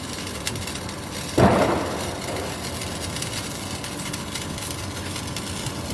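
Green sparkler burning with a steady faint fizz and scattered crackles. About one and a half seconds in, there is one loud sudden thump that fades within half a second.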